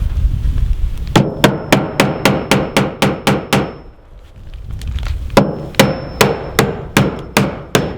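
Hammer driving nails into a MiraTEC composite trim board: two quick runs of sharp blows, about four a second, the first starting about a second in and the second after a short pause near the middle.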